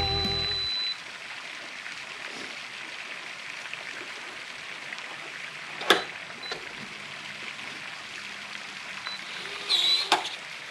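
Electronic keypad and fingerprint door lock being tested: short high beeps, a sharp click about six seconds in, then a louder warbling chirp and another click near the end as it unlocks, over a steady low hiss.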